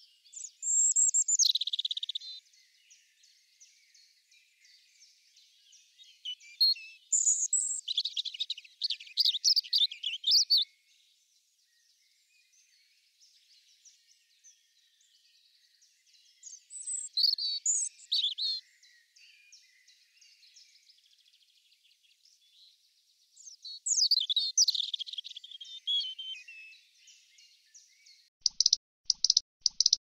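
European robin song: four high, thin, warbling phrases of a few seconds each, with pauses of several seconds between them. A quick run of sharp clicks near the end.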